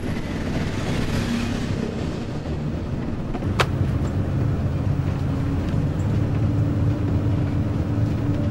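Bus engine running steadily, a low rumbling hum heard from inside the passenger cabin, with a single sharp click about three and a half seconds in.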